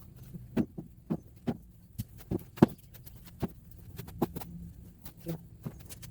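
Irregular knocks and clicks of potatoes and soil being handled by hand while a potato grow bag is harvested, with one louder knock about two and a half seconds in.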